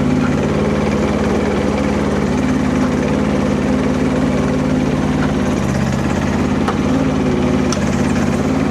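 Kubota diesel engine of a Rippa RS04 mini skid steer idling steadily, with a few faint ticks near the end.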